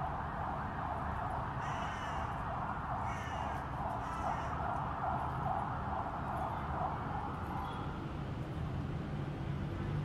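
Many birds calling at once in a dense, chattering chorus, with a few separate louder calls standing out between about two and four seconds in; the chorus thins out about eight seconds in.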